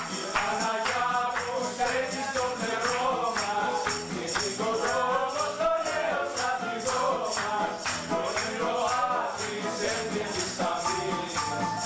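Live song performance: a voice singing a melody over keyboard accompaniment, with a jingling, tambourine-like percussion beat keeping steady time.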